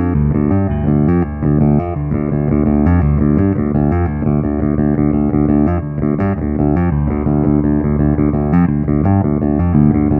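Ibanez SRMS725 five-string multiscale electric bass with Fishman pickups played loud in a rock line, set for a mid-heavy rock tone, with sustained notes changing steadily.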